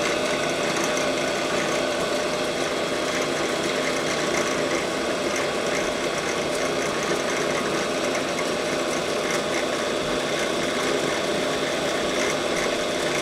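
Drill press running steadily, its motor giving an even hum that does not change.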